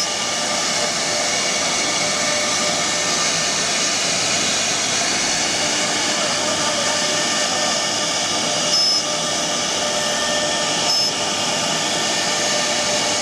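CNC wood router running steadily, its high-speed spindle giving a constant whine over a rushing hiss, with two brief bumps in level about nine and eleven seconds in.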